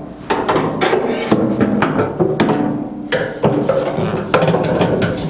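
A steel window regulator knocks and clanks against the sheet-metal door shell of a 1964 Chevy pickup as it is slid and worked into place, a run of irregular sharp knocks. Background music plays under it.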